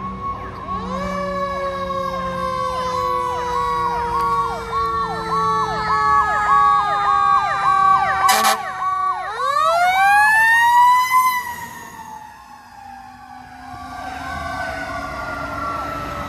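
Fire engine sirens: one siren yelps in rapid repeating sweeps while a second, slower siren tone falls steadily, climbs sharply about nine seconds in and then slowly falls again. A short sharp burst comes about eight seconds in.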